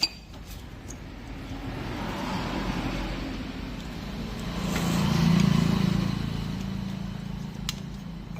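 A motor vehicle passing by: its engine and road noise swell to a peak about five seconds in, then fade away.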